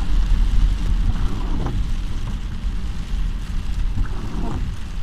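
Heavy rain and car noise heard from inside a car's cabin: a steady low rumble with a rushing hiss over it.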